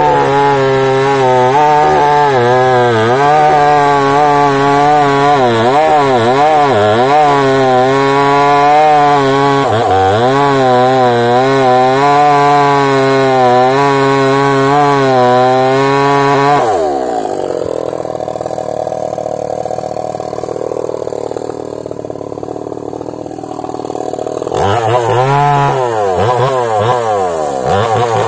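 Small two-stroke chainsaw running at full throttle, its pitch dipping and recovering under load as it cuts into a large tree. About two-thirds of the way through it drops back to idle for several seconds, then revs up again near the end.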